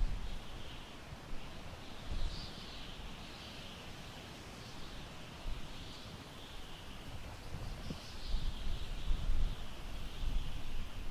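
Wind blowing through tall grass in gusts, with low buffeting on the microphone that grows stronger near the end. Faint high-pitched calls, rising and falling, repeat over it about once a second.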